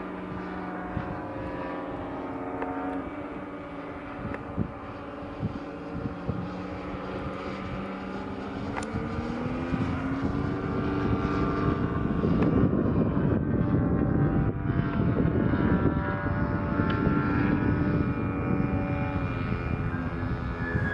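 Large radio-controlled Extra 260 model aeroplane flying on its ZDZ 180 twin-cylinder two-stroke petrol engine, a steady propeller drone. The pitch rises about eight to ten seconds in as the throttle opens, and the sound grows louder and rougher from about twelve seconds in.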